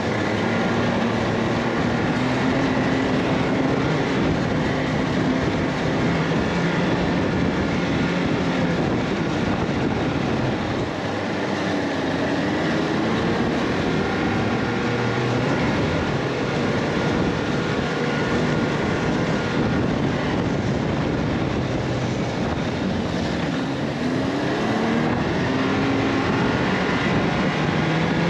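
A vehicle's engine running during a ride, its pitch rising and falling several times as the revs change, under a steady loud rushing noise.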